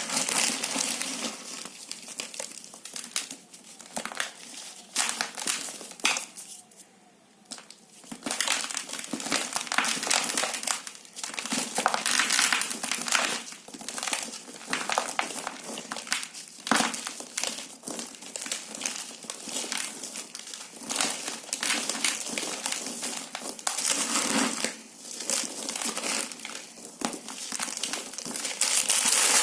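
A gritty, dry material crumbled between the hands: a dense run of crunching and crackling, with a short lull about seven seconds in.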